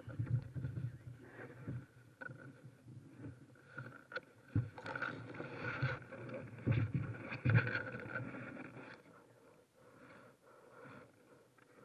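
Knocks, scrapes and rustling from a person shifting about in a burlap-covered kayak, moving from sitting to kneeling on the hull. The noise is irregular, with several sharp knocks and a busier stretch around the middle, then settles to quieter rustling near the end.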